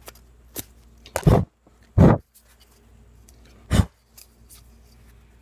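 A sanding block scratching lightly over a small black camera plate to roughen it for gluing, broken by three short, loud bumps about one, two and nearly four seconds in.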